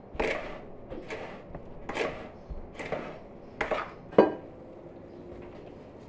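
A spoon stirring a dry filling of ground hazelnuts and sugar in a plastic bowl, scraping in strokes about once a second, with a sharper knock about four seconds in.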